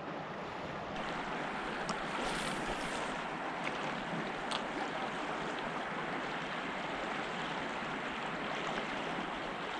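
River water flowing steadily, a constant rushing hiss, with a few faint ticks.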